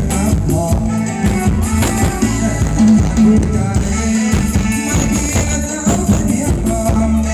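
Thai luk thung dance music played by a live band, with a steady drum-kit beat under a melody line.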